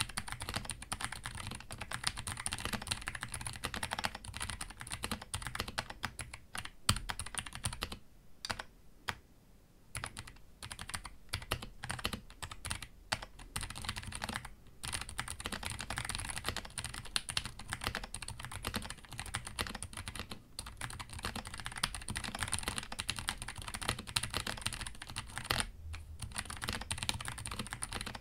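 Typing on a gasket-mounted MelGeek Modern97 mechanical keyboard with Kailh Tactile switches and PBT double-shot keycaps: a quick, continuous run of key clacks with little rattle, broken by a few short pauses, the longest about eight seconds in.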